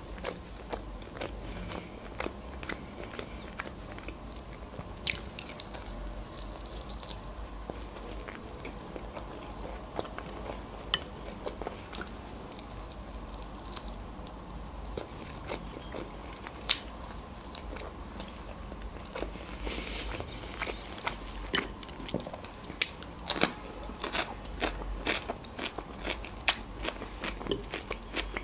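A person biting and chewing pan-fried chicken wings, with scattered sharp clicks and crackles that come thicker in the last several seconds.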